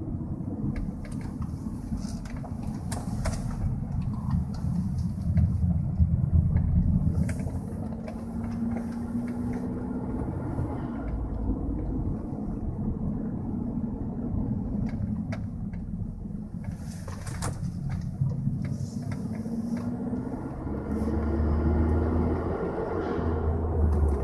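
Cabin noise of a 2003 Volkswagen Jetta 1.8T on the move: steady road rumble and the turbocharged four-cylinder's engine note, which climbs twice as the car accelerates. A few sharp clicks or knocks stand out over it.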